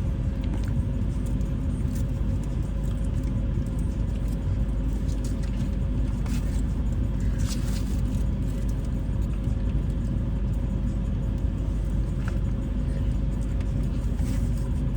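A car's engine runs with a steady low rumble heard from inside the cabin, with a faint steady hum above it and a few light ticks.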